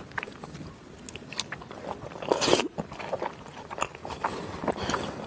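Close-miked eating of salmon: chewing with many short mouth clicks, and one louder bite about two and a half seconds in.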